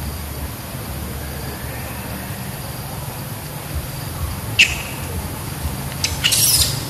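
Young macaques squealing as they tussle: one short, sharp squeak about two-thirds in, then a burst of shrill screams near the end, over a steady low background rumble.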